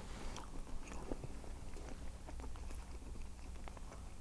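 A man chewing a mouthful of seafood pasta with his mouth closed: faint, irregular wet clicks of chewing over a steady low hum.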